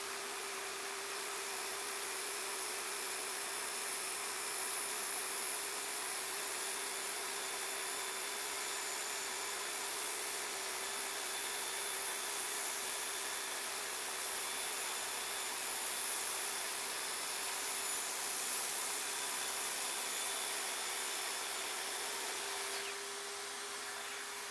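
Corded circular saw cutting plywood, running steadily with a steady whine, its dust-extraction hose drawing alongside. Near the end it gets a little quieter and the whine rises slightly in pitch.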